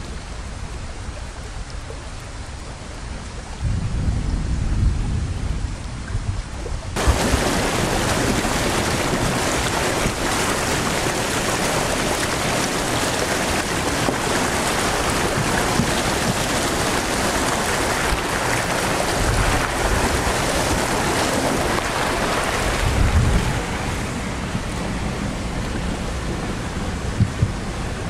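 Floodwater rushing and splashing against a 4x4 as it wades through deep water, a dense steady wash. It becomes much louder and fuller about seven seconds in, then eases slightly near the end.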